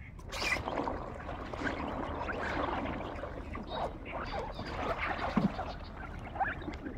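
Water sloshing and splashing, with scattered small knocks and clicks.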